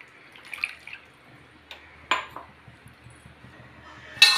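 Faint drips and small splashes of water in a kadai of whole tomatoes, with a few light clicks, then a sharp clank of steel cookware near the end that rings briefly.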